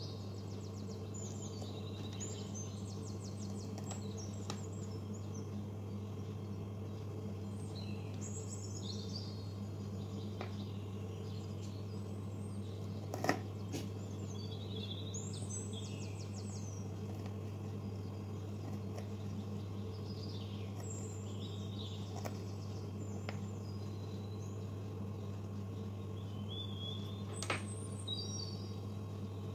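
Small birds chirping in short bursts every few seconds over a steady low hum. A few light sharp clicks of a small knife and metal utensils on the miniature board and dishes come through, the loudest about halfway through and another near the end.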